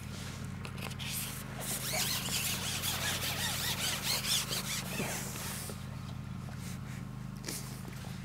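Outdoor ambience with small birds chirping, busiest from about two to five seconds in, over a steady low hum.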